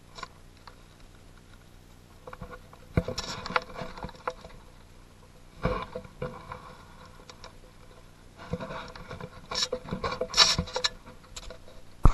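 Close rustling and handling noise in three irregular bursts of crackles and clicks, the sound of the gun and its mounted camera being shifted and held.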